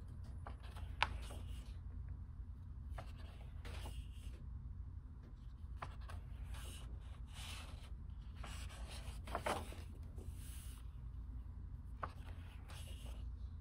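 Pages of a large oversized hardcover book turned one after another by hand: brief paper swishes and rustles, several of them with a sharp snap as a heavy page flips over, over a low steady hum.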